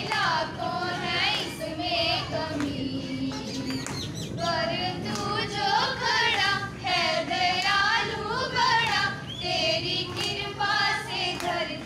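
Schoolchildren singing together into a microphone: a slow song with long, wavering held notes.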